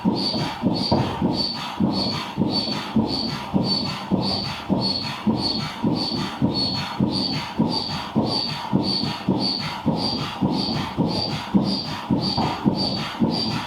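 Manual air pump inflating a Kolibri KM-360D inflatable boat, pumped in a steady rhythm of about two and a half strokes a second, each stroke a rush of air with a short high whistle.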